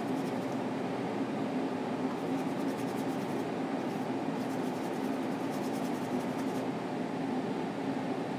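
Steady low background hum, with faint light scratching in two short stretches, one around the middle and one a little later.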